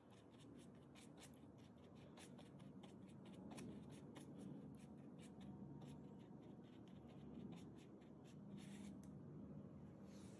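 Faint scratchy ticks and rubbing of a paintbrush mixing acrylic paint on an aluminium foil tray palette, irregular, a few ticks a second, with a longer scratch a little before the end.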